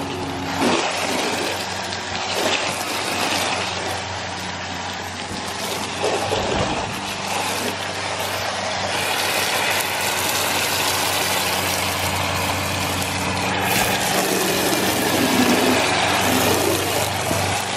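Hose-fed foam gun spraying soapy water onto a snowmobile, a continuous hiss of spray splattering on the plastic bodywork and the track, stronger from about halfway through. A steady engine hum runs underneath.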